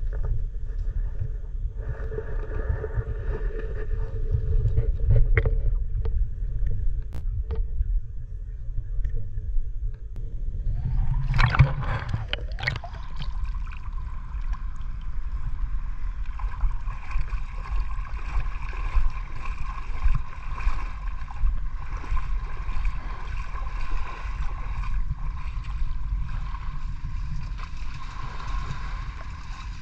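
Water churning and gurgling with a steady low rumble, and a brief louder rush of water about twelve seconds in.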